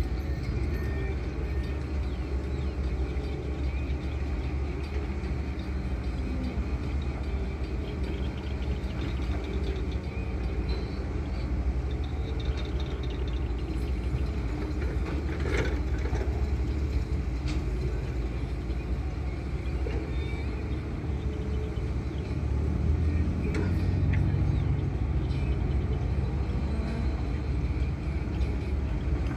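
Hydraulic excavators' diesel engines running under load, a steady low drone that swells slightly in the last few seconds. A brief sharp knock sounds about halfway through.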